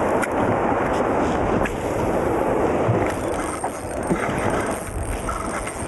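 Steady rush of wind on the microphone over open water, with the wash of small waves around the boat.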